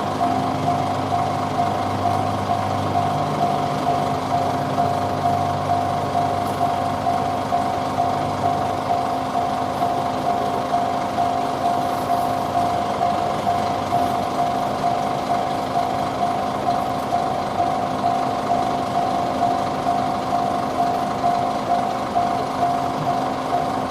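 Japanese railway level-crossing warning bell ringing its steady 'kan-kan' beat, a bit over one strike a second. A train's low rumble fades away over the first few seconds.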